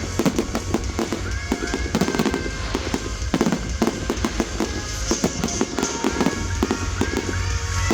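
Fireworks display: a dense, rapid run of bangs and crackling bursts over a continuous low rumble, with music playing underneath.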